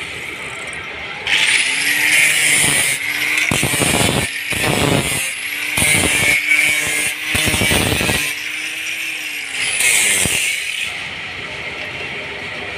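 Handheld electric angle grinder spinning up about a second in and run against a steel crankshaft shaft, grinding in several louder passes, then winding down near the end.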